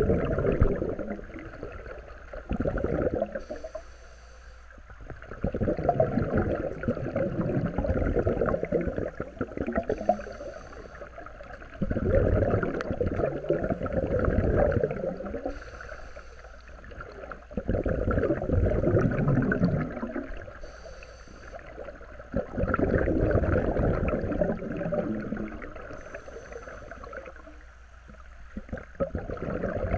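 Scuba diver breathing through a regulator, recorded underwater: a short hiss of inhalation through the regulator, then a long rush of exhaled bubbles, repeating about every six seconds.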